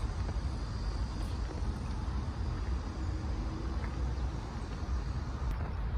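Wind buffeting a phone's microphone outdoors: a steady, uneven low rumble over faint open-air background.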